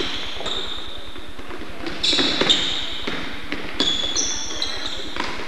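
Basketballs bouncing on a hardwood gym floor, a few separate bounces echoing in the large hall, with short high squeaks of sneakers on the court.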